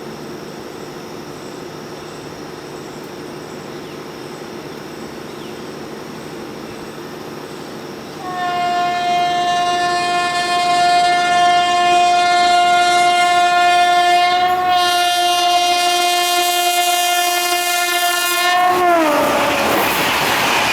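WAP-5 electric locomotive's air horn sounded in one long blast of about ten seconds as the train approaches at speed, its pitch dropping sharply as the locomotive passes. The horn gives way to the loud rush of the train going by.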